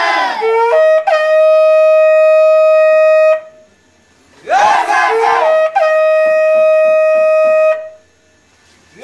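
Two long, steady blasts on a blown horn, each lasting about two seconds. Each blast is preceded by a short wavering cry.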